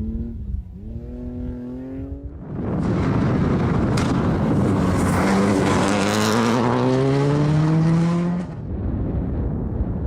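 Rally car engine accelerating with its pitch climbing, then running much louder under a rush of noise as it comes close, the revs rising again. The sound drops away suddenly near the end, leaving a quieter rushing noise.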